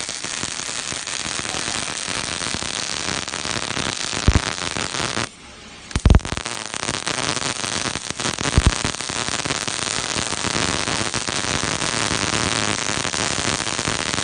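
Robotic gas-shielded (MIG/MAG) welding arc crackling steadily, an even crackle that the operator takes as a sign of a good shielding-gas mix. The arc breaks off for under a second about five seconds in and restarts with a loud pop, with other sharp pops about four and eight and a half seconds in.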